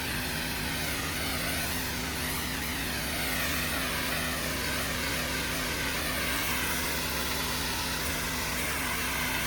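Pressure washer running: a steady engine drone under a continuous hiss of high-pressure water spraying on concrete.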